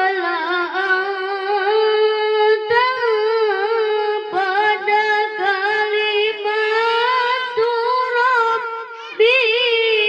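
A boy's high voice chanting Quran recitation (tilawah) into a microphone: long held notes with wavering melodic ornaments, broken by short pauses between phrases, with a louder, higher phrase starting near the end.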